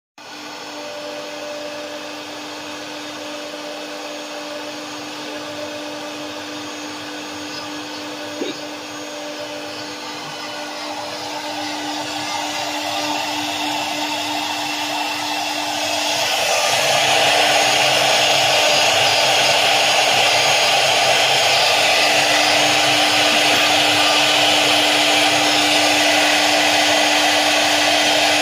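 Three-head CNC router's spindles running with a steady whine. From about 16 seconds in, the bits cut into the wooden board and a much louder cutting noise joins the whine.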